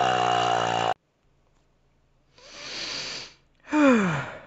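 A loud, rough fire-breathing roar that cuts off about a second in. Then a drawn breath in, and a woman's sigh falling in pitch.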